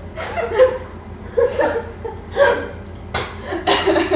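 Young women laughing and giggling in short bursts, about half a dozen times.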